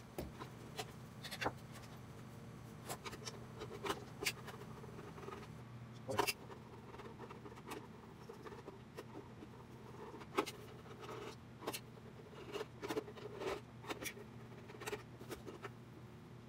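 Scattered clicks and light knocks of a screwdriver and hands working on the plastic housing of a Ninja blender motor base, taking out screws, with a few louder clacks. A faint steady low hum runs underneath.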